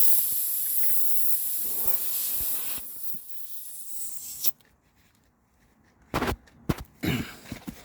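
Air hissing out of a punctured car tyre through the nail hole. It is loud at first, eases off, then cuts off suddenly about four and a half seconds in. A few short knocks follow near the end.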